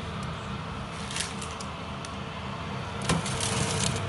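Metal baking tray being slid onto an oven's wire rack, with a few sharp metallic clicks and scrapes, about a second in and again about three seconds in, over a steady low hum.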